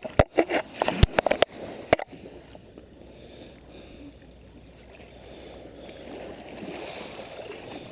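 A quick run of sharp clicks and knocks in the first two seconds, then a soft, steady wash of shallow water at the shoreline that swells slightly toward the end.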